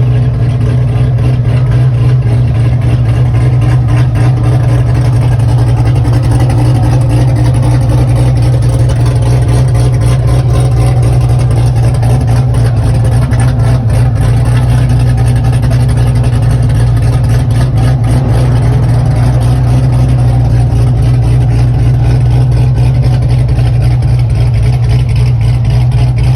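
Chevrolet Corvette engine running steadily, a loud, even low rumble with no revving.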